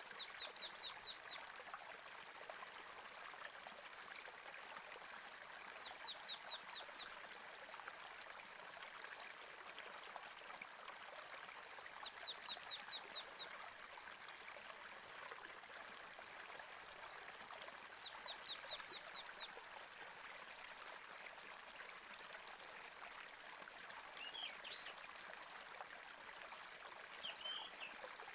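Steady running-water sound of a stream. Over it, a bird repeats a quick phrase of about six short falling chirps roughly every six seconds, and gives two different chirps near the end.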